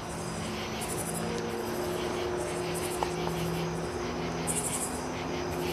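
Night insects chirping in repeated high-pitched pulsing bursts, over a steady low hum.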